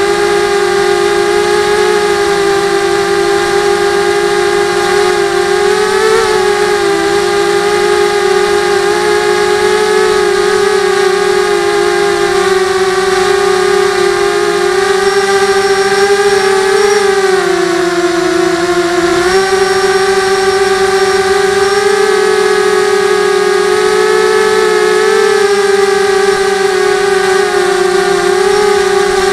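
Electric motor and propeller whine of an FPV model aircraft, heard through its onboard camera's microphone: a loud, steady high-pitched drone that wobbles slightly with throttle, drops lower for a couple of seconds a little past halfway and jumps back up.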